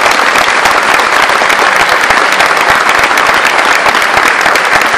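Audience applauding loudly and steadily, many people clapping at once, for an award winner just announced.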